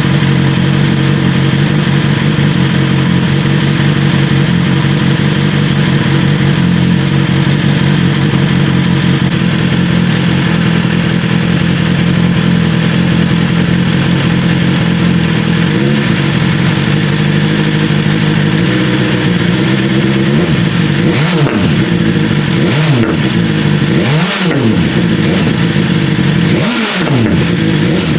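BMW S1000R's inline-four engine through an Austin Racing V3 Mini slip-on exhaust, idling steadily, then blipped several times over the last eight seconds or so, revs rising and falling with sharp pops on the overrun: the exhaust backfiring that comes once the engine is at temperature.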